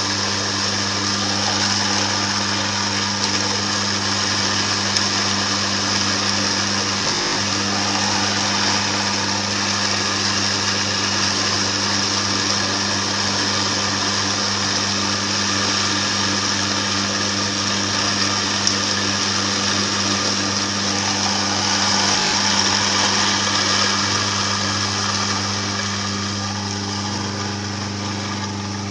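Electric juicer-style grinder running steadily, its motor humming without a break as it grinds roasted cacao nibs into liquid cocoa mass.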